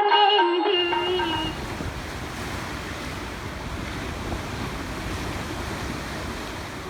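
Music fading out in the first second or so, giving way to a steady rushing noise with no clear tone.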